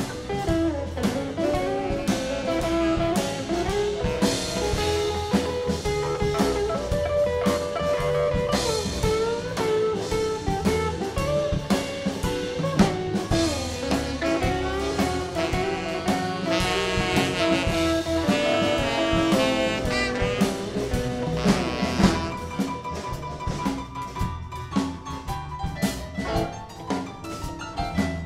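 Live band playing an instrumental blues-jazz number on drum kit, electric bass, electric guitar and keyboard, with a fast run of notes about two-thirds of the way through.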